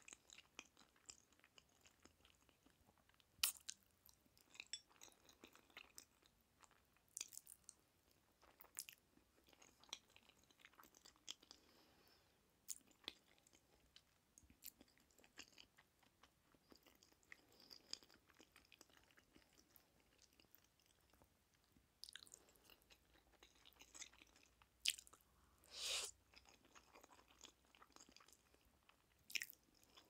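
Soft, close-miked chewing of jjajangmyeon noodles: scattered wet mouth clicks and smacks throughout, with one longer, louder wet sound near the end.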